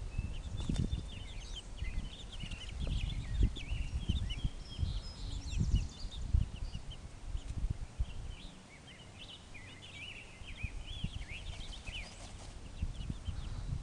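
Baby chicks peeping: many short, high cheeps overlapping throughout. Under them run irregular low thuds and rumble.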